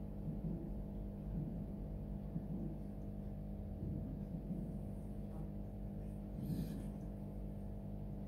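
A steady low hum made of many held tones, with a brief rustle about six and a half seconds in.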